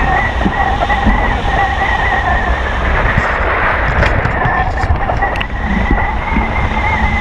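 Rushing wind of a hang glider in flight, heavy buffeting on the microphone, with a steady high whistle that wavers slightly and fades for a moment in the middle.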